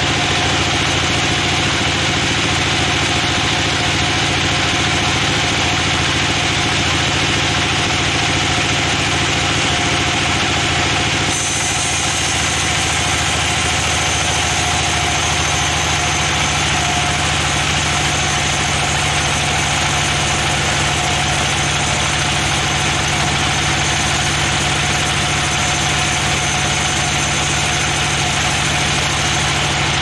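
Band sawmill running and cutting lengthwise through a large mahogany log: a steady machine drone with the hiss of the blade in the wood. About eleven seconds in the sound changes abruptly and a thin high whine joins it.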